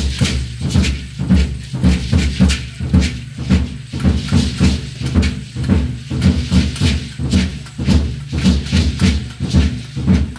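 Danza drum beating a steady, fast rhythm, with the dancers' hand rattles shaking in time with it.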